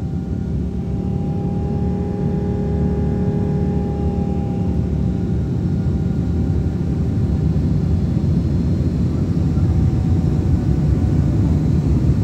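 Boeing 777-200's Pratt & Whitney engines heard from inside the passenger cabin: a steady, loud low rumble that grows gradually louder. A few steady tones ride on it and fade out about five seconds in.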